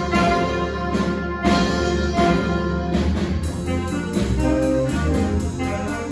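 Student jazz big band playing live: saxophone and brass sections over piano and drum kit, with punchy accented ensemble hits. About three and a half seconds in, a quick steady ticking beat from the drum kit comes forward.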